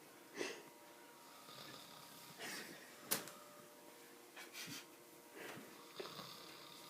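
Faint, wheezy snoring breaths from someone asleep, coming every second or two. A sharp click about three seconds in is the loudest sound.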